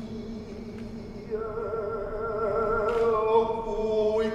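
A voice singing one long held note with a wavering vibrato, starting about a second and a half in, over a steady low tone.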